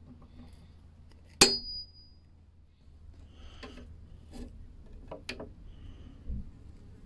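A sharp metallic clink that rings briefly, about a second and a half in, then several lighter clicks and a soft thud near the end: a chrome-plated butt hinge being handled and laid into its cut recess on a beech door edge.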